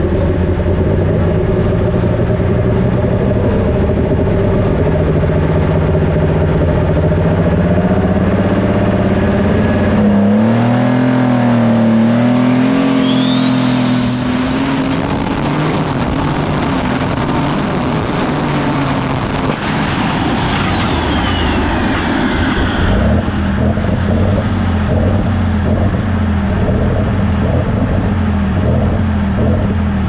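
Turbocharged diesel engine of a lightweight super stock pulling tractor running hard under load with the sled. The engine note climbs about a third of the way in, then a turbocharger whine rises steeply to a high, steady scream, holds for several seconds and falls away as the engine comes off, settling back to a lower rumble.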